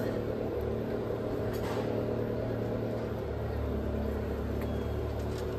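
Steady engine hum of a vehicle running close by on a city street, with a brief hiss about a second and a half in.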